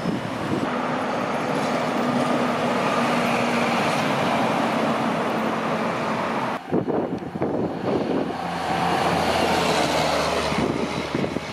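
Street traffic with tow trucks and cars driving past: steady tyre noise and engine hum. The sound breaks off abruptly a little past halfway and resumes with another flatbed tow truck going by.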